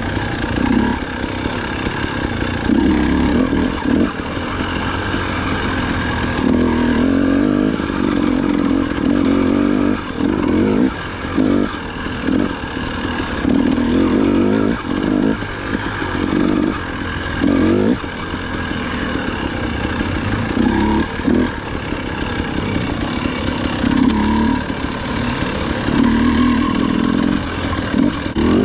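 Dirt bike engine being ridden along a rough forest single-track, the revs rising and falling every second or two as the throttle is opened and closed.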